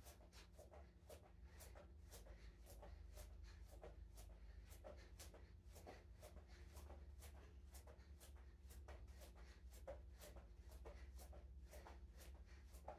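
Faint soft thuds and scuffs of bare feet landing on a yoga mat during jumping jacks, about two a second, over a low steady hum.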